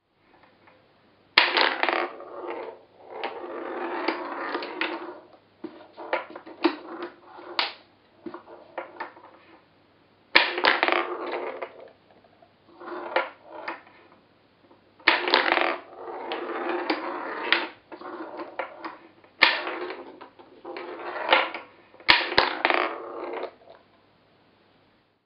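Steel pinballs rolling along the plywood lanes of a homemade mechanical pinball table and clacking into the multiball collector. There are about eight runs of rolling, each opening with a sharp clack.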